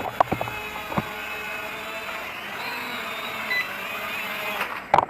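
A steady whir of small electric motors with faint wavering tones, broken by a few sharp clicks near the start and a cluster of clicks near the end.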